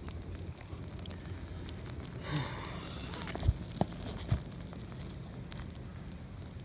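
Burn pile of branches crackling as it burns down to hot coals, with a steady run of small ticks and a few louder, sharp pops about halfway through.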